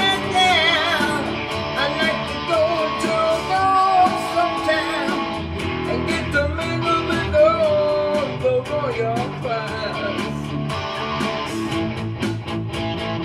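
Electric guitar playing a lead line of bent, wavering notes over a rock accompaniment with a steady beat.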